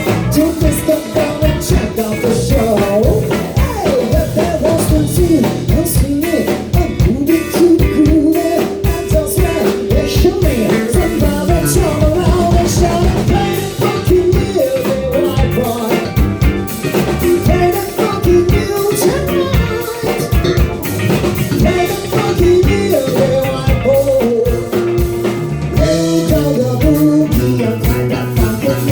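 Live rock band playing an up-tempo song with drum kit and guitar, mostly an instrumental stretch with little or no lead vocal.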